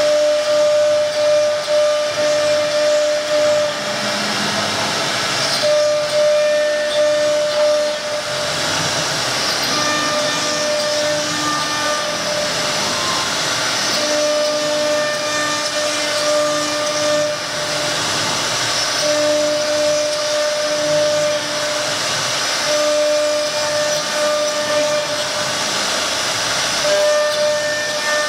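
A 1325 CNC wood router's spindle cutting a pattern into a wooden board: a steady hiss of cutting with a pitched machine whine that comes and goes every few seconds as the cutter works along the pattern.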